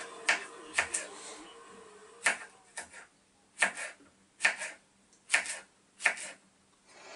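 Kitchen knife slicing a green vegetable on a cutting board: a series of sharp, uneven knocks as the blade strikes the board, with a short pause about a second in.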